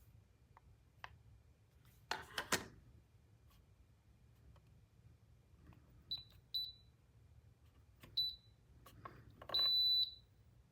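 Electronic control beeps from a Dreo Lynx S smart table fan as its settings are changed: three short, high beeps, then a longer beep near the end. A short clatter of handling comes about two seconds in.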